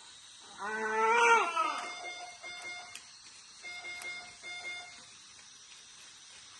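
A short cry lasting about a second near the start, then a medical monitor alarm sounding a repeated pattern of steady electronic beeps for about three seconds.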